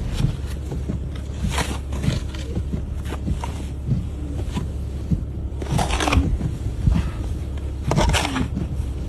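Wind buffeting the microphone in a snowstorm, a steady low rumble, with irregular crunching noises over it.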